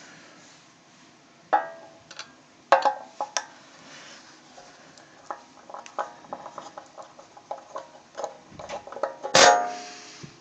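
Metal clinks and taps of a screwdriver working on a car amplifier's metal case: a few sharp ringing clanks, about a second and a half in, near three seconds and near the end, with lighter ticks and clicks between.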